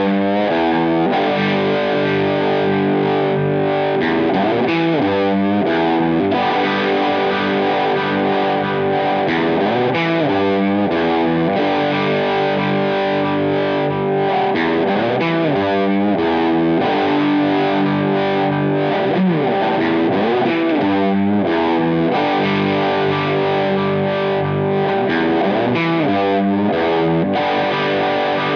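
Distorted electric guitar through an amp, played on an Edwards relic Les Paul: a rock riff of held chords and notes, with notes sliding in pitch every few seconds.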